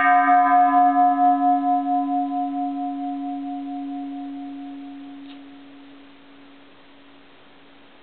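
Bronze Japanese Buddhist temple bell, dated 1805, ringing out after a single strike. Its bright upper tones die away within the first few seconds, a pulsing middle tone fades by about six seconds in, and a low hum keeps sounding faintly.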